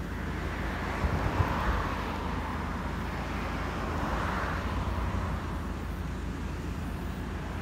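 Road traffic passing outdoors, with two vehicles swelling by, about a second and a half and about four seconds in, over a steady low rumble of wind on the microphone.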